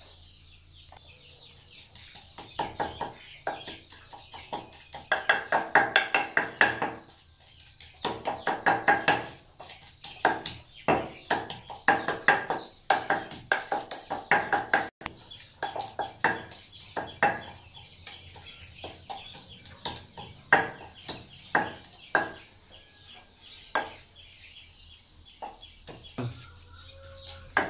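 Wooden pestle pounding in a stone mortar, crushing grilled shrimp paste with garlic and shallots: rapid strokes in bursts with short pauses between them.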